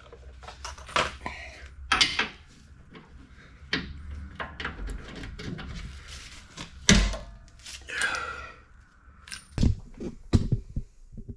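Scattered metallic clanks and knocks of a long bar being fitted to and worked on a half-cut control arm bolt to snap it. The loudest knock comes about seven seconds in, and a quick run of knocks comes near the end.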